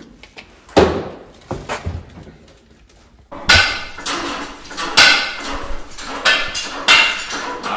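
Metal tools and scooter parts knocking and clanking on a workshop bench: two single knocks in the first couple of seconds, then a busier run of sharp, ringing clanks from about three seconds in.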